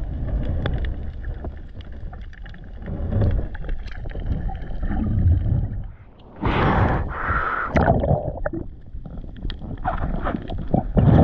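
Water sloshing and gurgling around a camera in the sea during a snorkel dive: a muffled low rumble with small knocks, then a brief lull about six seconds in and louder splashing bursts.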